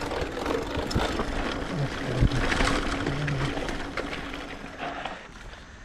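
Mountain bike ridden over a dirt trail: tyre and drivetrain noise with many small rattles and clicks, and one sharp knock about two seconds in.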